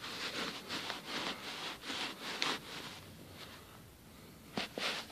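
Sneaker sole rubbing and scraping on carpet in a run of short strokes as a bug is ground into the pile. The strokes fade after about three seconds, with a couple of light clicks near the end.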